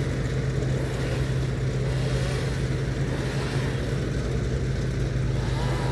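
An engine running steadily at one constant speed, a loud unbroken hum with a rough rattle over it, from the tree surgeons' powered equipment.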